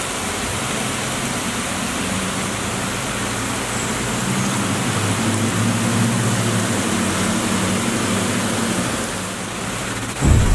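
Heavy rain pouring down in a steady hiss, with the low engine hum of a car driving through the flooded street swelling in the middle and fading near the end.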